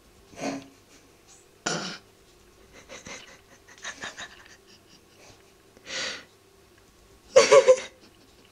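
A person's stifled, breathy laughter: short snorting puffs of breath every second or so, breaking into an open laugh near the end.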